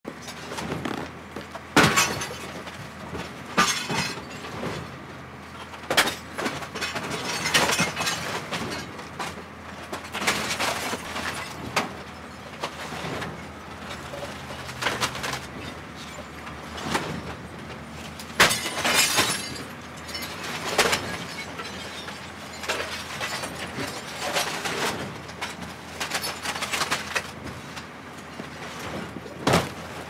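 An old tube television being smashed with a heavy hammer: a dozen or more blows at irregular intervals, each followed by crackling, shattering glass and breaking plastic.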